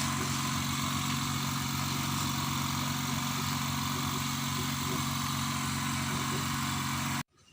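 Small Izumi OL07-09 electric air compressor running steadily, a constant low hum with a hiss over it, feeding air down a well pipe to lift water. It cuts off abruptly near the end.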